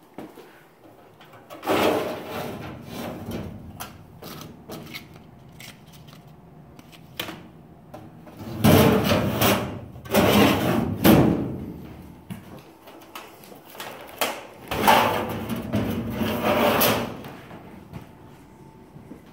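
Metal office desk drawers being pulled open and pushed shut, in three noisy bouts of a couple of seconds each, with scattered clicks and knocks between.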